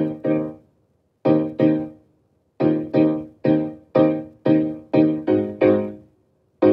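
Background music: keyboard chords, each struck and fading away, in pairs with short silent gaps between, then coming closer together in the second half.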